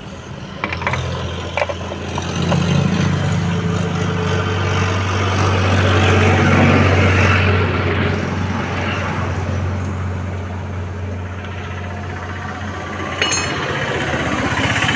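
A vehicle engine runs with a steady low hum, swelling to its loudest around the middle and then easing off. A few sharp metallic clicks come near the start, and a brighter clink comes near the end.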